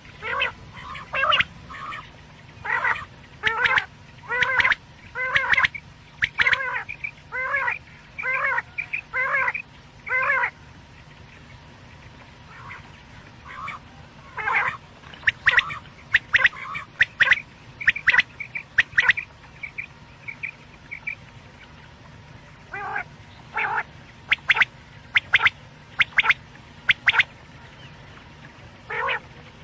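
Quail calling in quick runs of short, repeated notes. A steady run fills the first ten seconds or so; after a pause come sharper, higher notes in clusters until the end.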